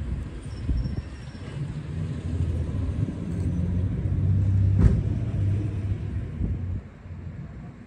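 A motor vehicle's low engine rumble that swells and then fades away, as of a car going by, with a sharp click near its loudest point.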